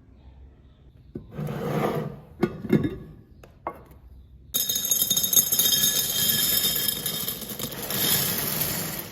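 Snack packaging and jars being handled: a rustle, a few sharp knocks, then steady rustling for about four and a half seconds, as snacks are refilled into jars.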